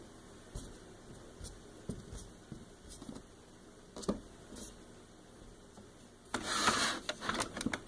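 Small plastic toys and Play-Doh being handled on a tabletop: a few faint taps and clicks, then a louder rubbing rustle about six seconds in.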